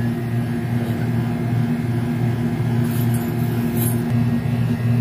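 Steady low electrical hum, like a household appliance motor running, with a couple of faint clicks about three and four seconds in.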